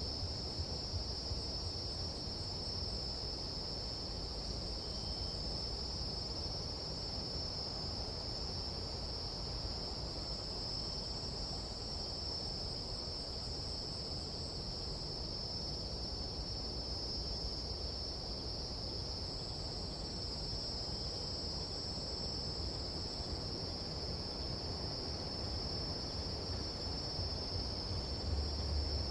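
Nighttime tropical jungle insect chorus: a dense, unbroken high-pitched trilling, with a low rumble underneath.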